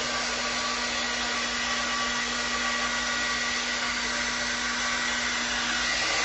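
Hair dryer blowing steadily on a wet dog's fur, a constant rush of air with a steady motor whine.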